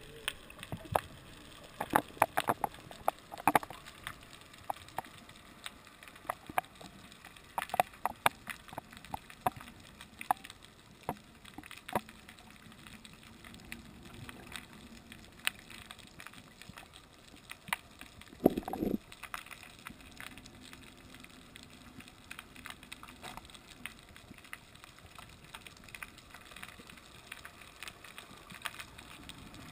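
Underwater ambience picked up by a submerged camera: a faint hiss of water with scattered sharp clicks and knocks, thickest in the first ten seconds, and one short louder burst about eighteen seconds in.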